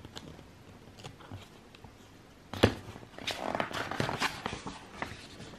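Paper pages of a printed programme being turned by hand: a sharp flick about two and a half seconds in, then a couple of seconds of paper rustling.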